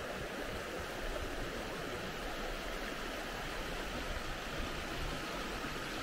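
Glacial meltwater stream flowing steadily.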